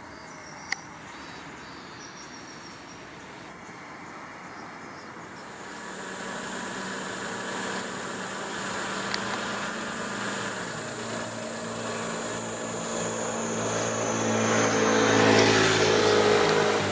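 A motor vehicle approaching and passing, its engine and tyre noise building over about ten seconds, loudest near the end and then starting to fade.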